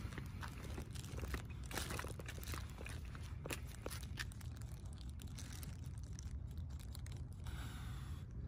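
Irregular crackling and rustling of hedge leaves as an English bulldog noses into a clipped hedge, over a steady low rumble. The crackles thin out about halfway through.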